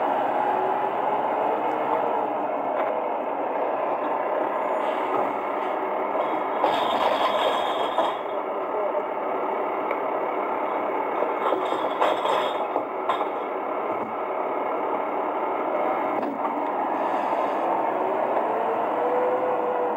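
Volvo FE bin lorry's diesel engine running steadily at the kerb, its note rising and falling near the end. Clattering and scraping of recyclables being dropped into the Kerbsider body's side compartments come about seven and twelve seconds in.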